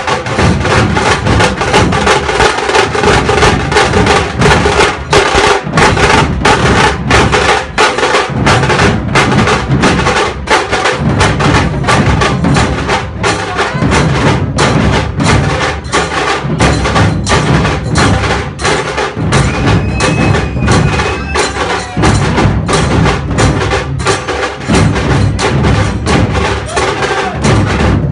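A group of dhol drums beaten together, with a continuous stream of sharp strikes several to the second in a steady rhythm.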